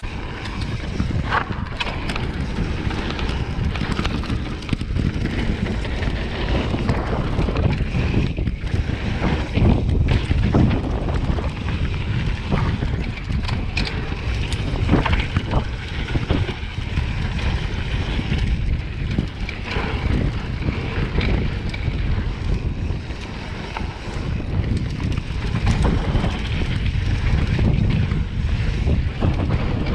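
Wind buffeting the microphone during a fast mountain-bike descent on a dirt trail, with tyre rumble and frequent clatters and knocks from the bike over bumps.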